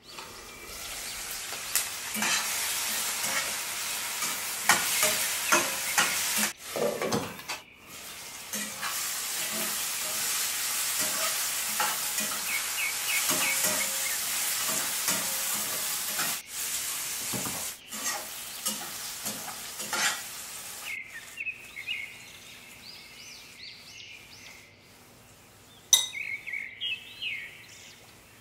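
Food sizzling in hot oil in a pan while a spoon stirs it, scraping and knocking against the pan. The sizzling drops away about two-thirds of the way through, leaving birds chirping in the background.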